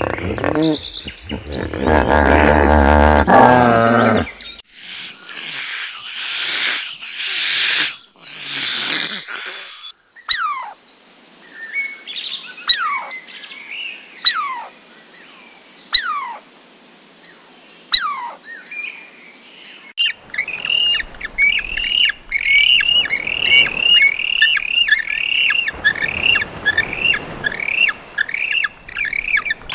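A string of animal calls. It opens with a hippopotamus's deep, wavering honking grunt for about four seconds, followed by breathy puffs. Then come five sharp downward-sweeping chirps about two seconds apart, and from about two-thirds of the way in, rapid high chirping.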